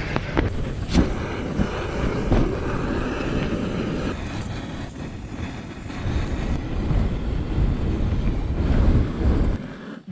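Strong gusting wind buffeting the microphone, a deep rumbling rush that rises and falls, with a few sharp knocks in the first few seconds.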